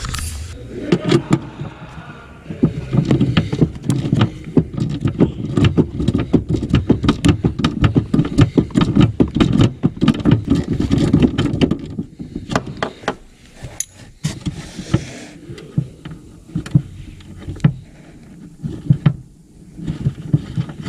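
Dense, irregular clicking, knocking and rattling of a hand working inside the Mini Cooper's plastic boot trim opening, loosening the tail light's fastening. The knocks thin out to scattered clicks after about twelve seconds.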